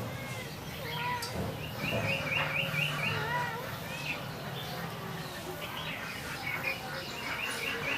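Birds chirping: a rapid run of repeated high chirps about two seconds in, with scattered short calls throughout.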